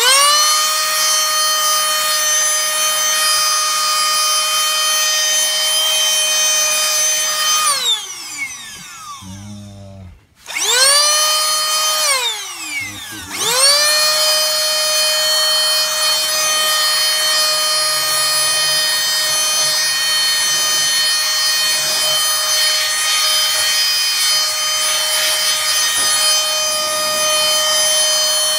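Canless Air O2 Hurricane electric duster's fan motor spinning up to a steady, high whine as it blows air. About eight seconds in it winds down with a falling pitch, then spins up again about two seconds later, dips briefly, and runs steady again.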